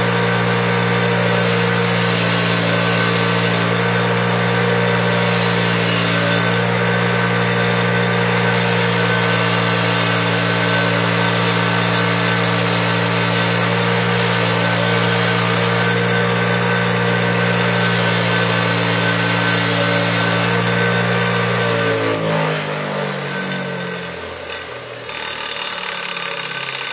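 Delta bench grinder's motor running steadily while an engine valve is held against its spinning wire wheel, brushing carbon off the valve. About 22 seconds in the grinder is switched off and its hum falls in pitch as it spins down.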